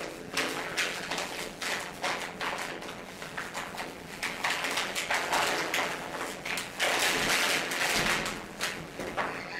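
Paper rustling and crumpling in someone's hands, among many light taps and knocks from handling and movement. The rustling grows denser and louder about seven seconds in.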